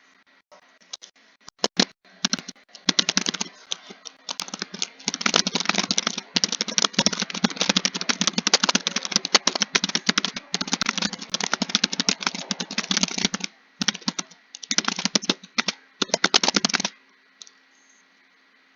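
Fast typing on a computer keyboard: quick runs of key clicks broken by short pauses, stopping a couple of seconds before the end.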